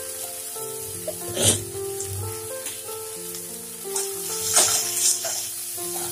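Onion and spice masala sizzling in a nonstick wok, with a spatula stirring and scraping through it in a few short strokes, loudest about a second and a half in and again around four to five seconds in. Background music plays over it.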